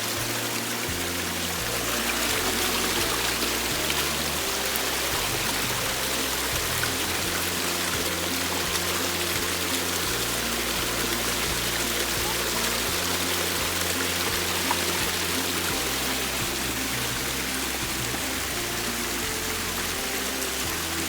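Steady rush of waterfall water, with background music carrying a slow bass line that steps from note to note.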